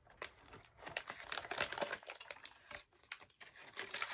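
Thin clear plastic sweet bag crinkling as it is handled, in quick irregular crackles, with a short lull about three seconds in.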